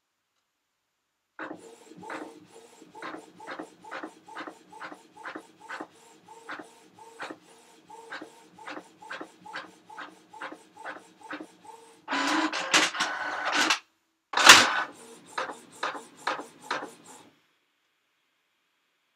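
A printer printing: a run of short, even strokes, about three a second, then a louder rattling stretch and a sharp clunk after about twelve seconds. A few more strokes follow before it stops.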